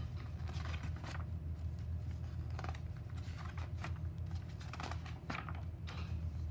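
Pages of a thick book being handled and turned by hand: a series of short paper rustles and flicks over a steady low hum.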